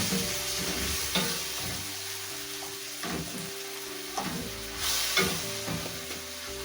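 Chopped tomatoes sizzling in hot oil in a pan while a spoon stirs and mashes them, with short scrapes and knocks against the pan every second or so.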